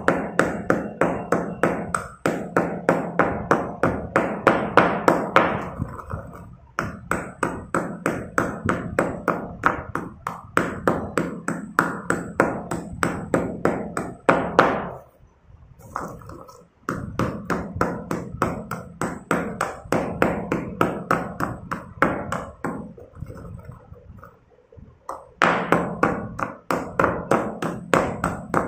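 Pestle pounding and crushing chunks of chalk in a stone mortar, about four strikes a second, stopping briefly about halfway through and going softer for a few seconds before picking up again near the end.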